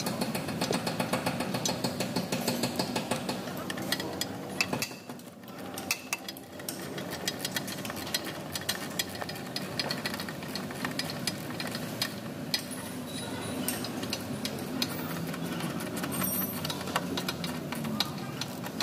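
Ratchet wrench clicking in quick runs as a socket turns and tightens the bolts of a stabilizer bar bushing bracket, with a short pause about five seconds in.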